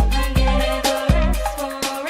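Funk melody track from a DJ mix: heavy bass-drum kicks about twice a second with sharp snare and hi-hat hits under a gliding synth melody.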